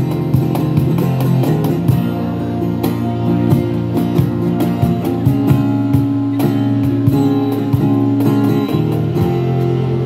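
Live amplified band music with no vocals: an acoustic guitar strummed over long held low notes, with a steady beat.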